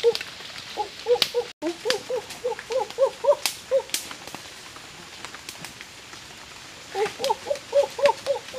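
An animal calling in runs of short rising-and-falling notes, about three to four a second, pausing in the middle and starting again about seven seconds in. Scattered sharp clicks sound among the calls.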